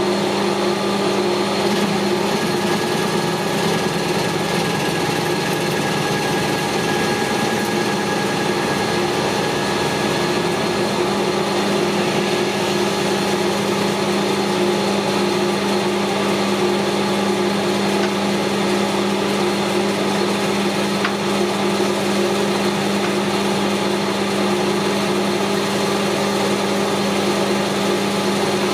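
Metal lathe running at a steady speed while the tool takes a facing cut across 100 mm round bar stock: an even machine hum that does not change.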